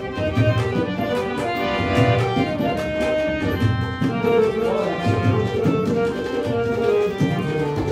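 Harmonium playing a melody of held reed chords and notes, over a regular rhythmic beat.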